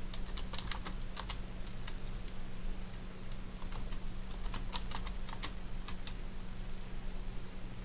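Computer keyboard typing in two short bursts, one in the first second and a half and another from about three and a half to six seconds in: short command entries typed into 3D modelling software. A low steady hum runs underneath.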